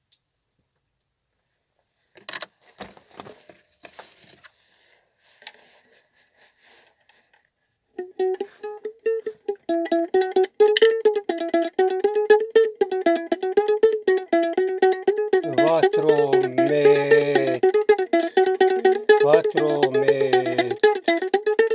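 A few faint knocks and rustles, then from about eight seconds in a ukulele strummed fast and steadily, changing chords.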